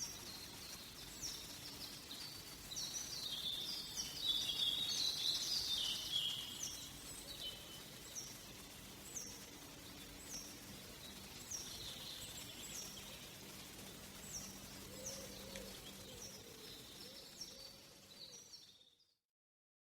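Forest ambience with birds singing. One bird repeats a short, high, falling note about once a second, and several birds sing together for a few seconds near the start. The sound cuts out abruptly about a second before the end.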